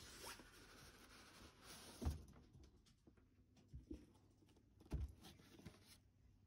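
Cardboard boxes being moved about by hand, with a few dull thumps, the loudest about two seconds in and another about five seconds in.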